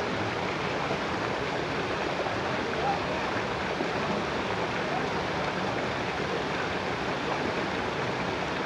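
Shallow rocky stream running steadily over stones, an even rushing of water.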